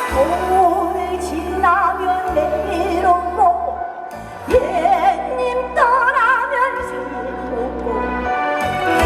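Live trot song: a female voice singing long notes with wide vibrato and sliding pitch over a backing track with steady bass. The music dips briefly about four seconds in.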